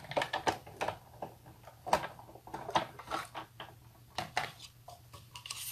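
Irregular light clicks and knocks of small craft tools and materials being handled on a work table, the loudest about two seconds in.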